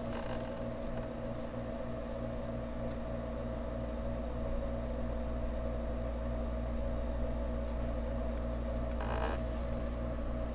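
Steady low electrical hum with a faint regular throb in it, about three pulses a second, and a brief faint hiss about nine seconds in.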